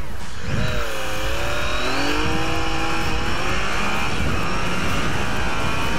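Yamaha Tracer 900's 847 cc three-cylinder engine accelerating hard from a standstill. The engine note climbs as the bike gathers speed, with wind noise building over the helmet.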